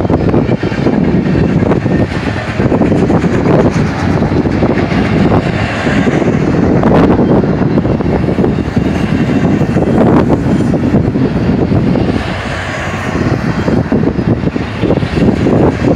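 Double-stack container well cars of a fast freight train rolling past close by: a loud, continuous rumble and rattle of steel wheels on rail, with a few sharper clanks. The sound eases briefly about three-quarters of the way through.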